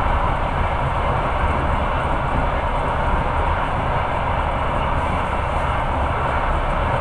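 Steady running noise of a moving train heard from aboard: wheels rolling on the rails and rushing air, with no distinct clicks or changes.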